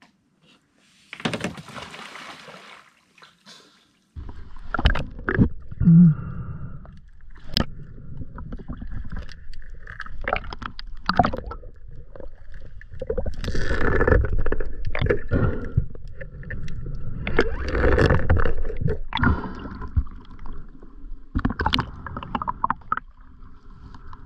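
A rushing splash about a second in as a spearfisherman slides off the boat into the water. From about four seconds, muffled underwater sound picked up by an action camera: water gurgling and sloshing against the camera, with scattered knocks.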